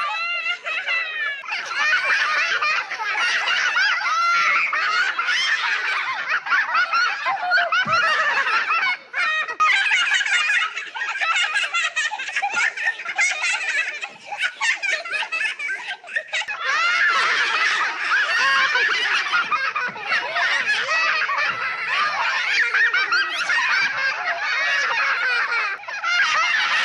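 Laughing sound effect of many tiny, high-pitched voices snickering and giggling at once, the laughs overlapping continuously with only brief dips.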